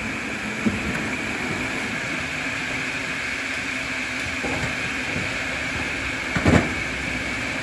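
A wood-cutting machine's motor running steadily. About six and a half seconds in, a single loud knock as a log is set down or dropped.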